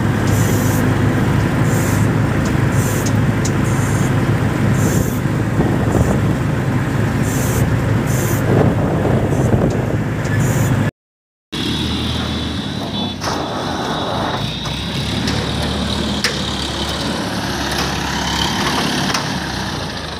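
ACE 14XW hydra crane's diesel engine running as the crane drives along a road, heard from on board along with road and wind noise. The sound breaks off for half a second about eleven seconds in, then the crane's engine continues, with a faint steady high tone.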